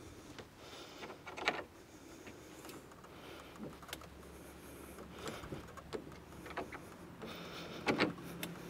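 Scattered clicks and knocks of bimini frame fittings and bolts being handled and fitted, the loudest about one and a half seconds in and again near the end.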